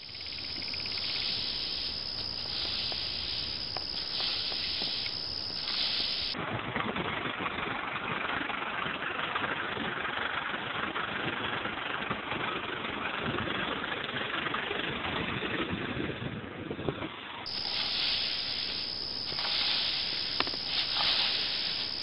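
Steady hissing noise of outdoor field sound throughout. In the middle stretch, from about 6 s to 17 s, a tractor with a rear-mounted disc mower is heard cutting standing grass, its engine running under the hiss.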